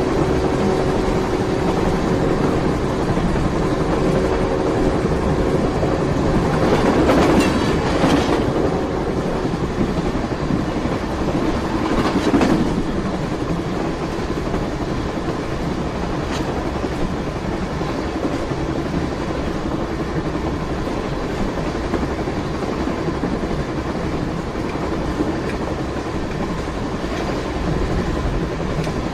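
A train running on the rails with a steady, even running noise. A few held tones sound over it for roughly the first nine seconds, and it grows louder briefly about seven to eight seconds in and again about twelve seconds in.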